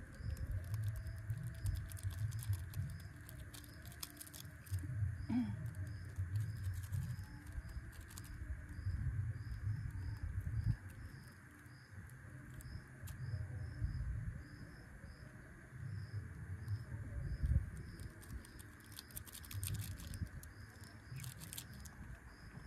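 Wind buffeting the microphone in uneven gusts, over insects calling: a steady high hiss and a high chirp repeated about twice a second.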